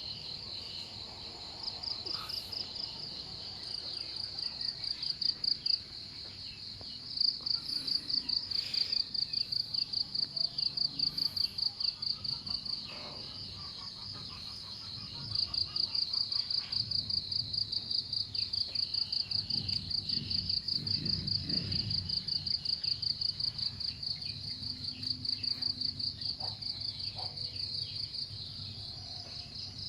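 An insect calling with a high-pitched pulsing chirp, about three or four pulses a second, in long runs that pause briefly twice.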